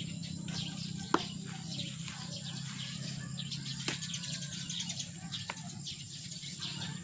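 Hand trowel scraping and stirring potting soil mixed with carbonized rice hull in a plastic basin, a gritty rustle with a couple of sharp knocks, one about a second in and one near four seconds. Birds chirp in the background.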